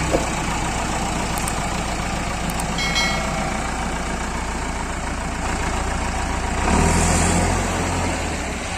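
Heavy machine's diesel engine running steadily, swelling louder for about two seconds near the end as it is revved or loaded.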